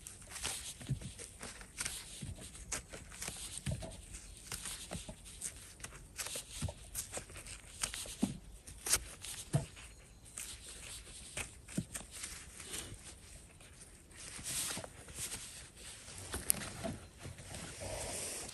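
Footsteps and rustling through forest undergrowth: irregular crackles and snaps throughout, a few louder ones about halfway through.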